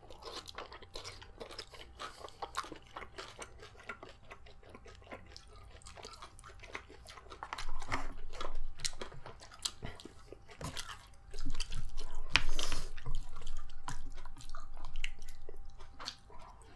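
Close-up eating sounds: chewing and crunching with repeated small clicks and smacks, getting louder in the second half.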